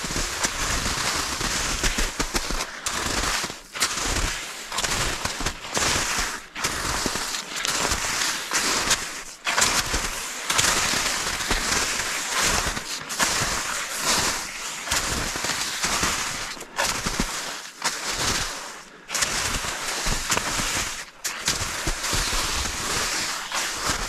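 Footsteps of a person walking through forest ground, crackling and snapping of twigs and brush underfoot, about one step a second.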